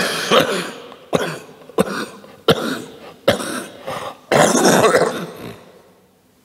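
A man coughing repeatedly in a fit of about seven coughs, which stops about five and a half seconds in.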